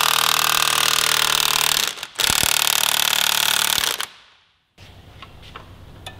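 Impact wrench hammering on a motorcycle's 36 mm countershaft sprocket nut to break it loose, in two long bursts with a short break about two seconds in; it stops about four seconds in, followed by a few faint clicks.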